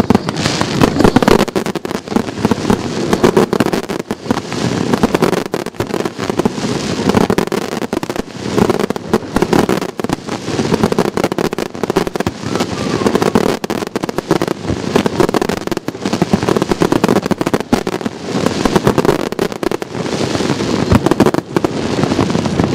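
Fireworks display: shells bursting and crackling stars going off in a dense, continuous run of sharp bangs and crackle, the level rising and falling with each volley.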